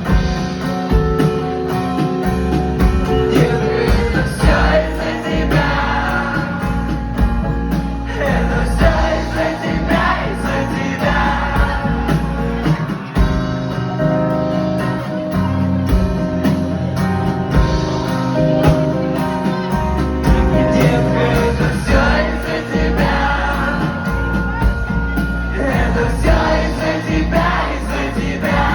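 Live acoustic band performance: acoustic guitar and band playing a pop-rock song, with singing over it.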